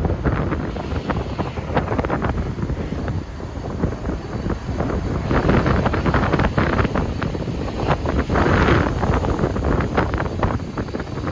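Strong gusty wind buffeting the microphone, a loud low rumble that swells and eases with the gusts.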